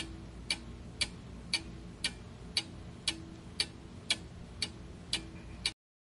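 Clock-ticking sound effect for a quiz countdown timer: even ticks about two a second, alternating tick and tock, over a faint steady background. It stops near the end.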